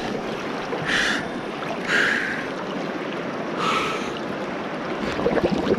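River water rushing steadily over rocks, with a person taking three short, sharp breaths over it, about one, two and nearly four seconds in.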